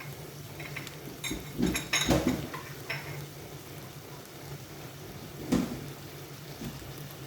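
A cooking spoon knocking and clinking against a pan a few times as ingredients are added and stirred. The loudest knock comes about five and a half seconds in, over a low steady hum.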